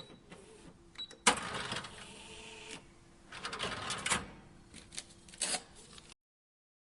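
Cash register being worked: two short high beeps, then a loud mechanical whirring clatter lasting about a second and a half, followed by a run of clicks and rattles.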